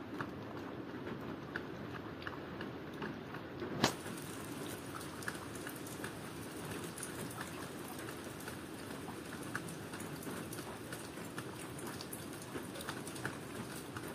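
Steady rain falling, with many small drops pattering and dripping on hard surfaces. A single sharp click stands out about four seconds in.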